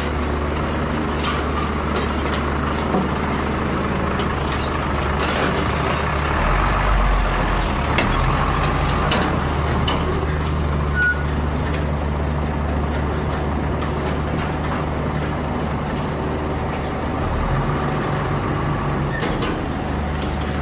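Hydraulic excavator's diesel engine running, its low drone swelling under load about six seconds in and again near the end, with scattered clanks and knocks from the work and one brief high tone about eleven seconds in.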